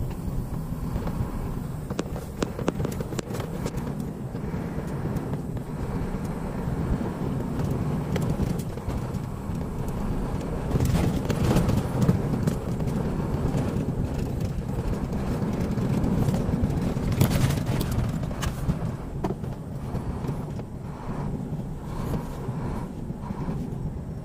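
Mack semi-truck's diesel engine running as the truck rolls slowly, heard from inside the cab as a steady low rumble. Sharp clicks and rattles from the cab come through, thickest about halfway and again a few seconds later.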